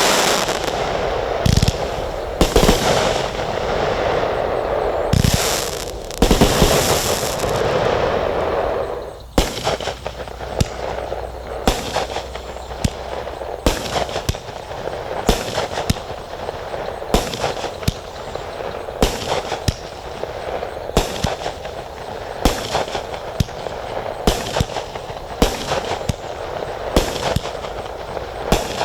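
Consumer fireworks from a 192-shot assortment firing. For the first nine seconds or so there is a dense crackling barrage with heavy thumps. After a brief dip it settles into a steady run of separate sharp shots, about one or two a second, over a lighter crackle.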